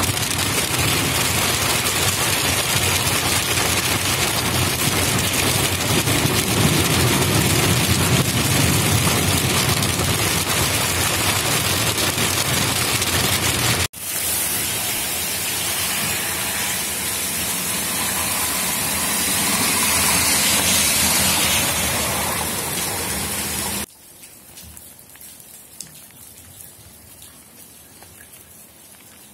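A hailstorm: hail and rain drumming on a car's roof and windshield, then pelting down on a hail-covered street. About five seconds before the end it drops abruptly to a much softer patter.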